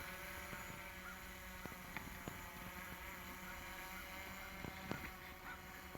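Faint steady motor hum with several steady tones in it, broken by a few light clicks.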